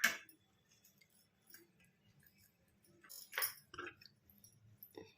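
Faint kitchen handling sounds with a few soft clinks, loudest about three and a half seconds in, as grated ginger is squeezed to extract its juice.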